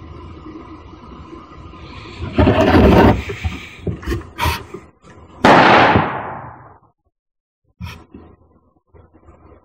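A single AK-pattern rifle shot about five and a half seconds in, ringing and echoing away over about a second. It is preceded by a short rough noisy burst and a couple of sharp clicks.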